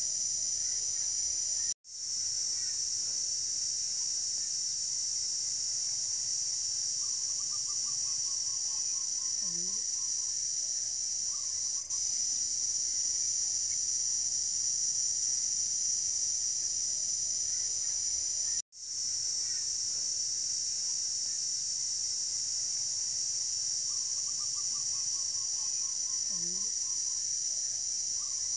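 Steady, high-pitched chorus of insects such as crickets, with a short call of quick falling notes twice. The sound cuts out for an instant twice, and the same stretch repeats about seventeen seconds apart.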